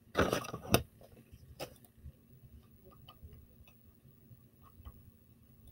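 Faint, scattered clicks of a computer mouse, after a short louder burst of handling noise about a quarter of a second in.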